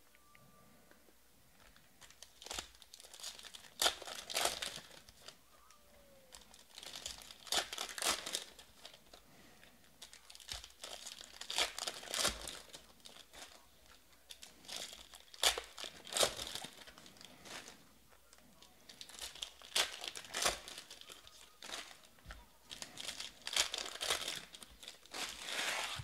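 Foil wrappers of Panini Prizm baseball card packs crinkling and tearing as the packs are ripped open, in short bursts every few seconds.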